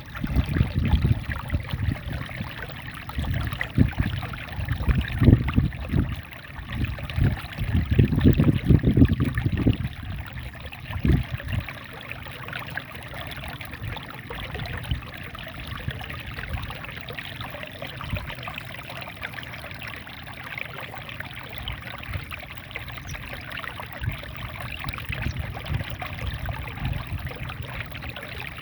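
Small waterfall in a rice field, water splashing and flowing steadily. For about the first ten seconds, irregular low rumbles rise over it, then they settle.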